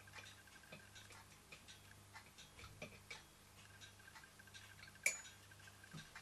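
Faint, irregular small metallic ticks and clicks as an oil can works at the crank of a small brass toy steam engine during oiling, with one sharper click about five seconds in.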